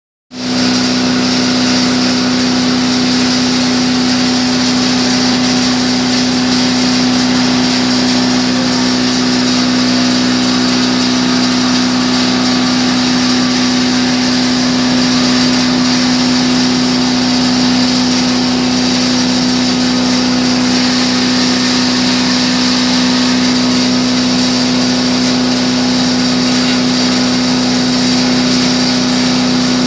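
Belt-driven spice grinding machine (pulverizer) running steadily under its electric motor: a loud, constant drone with a high hiss over it.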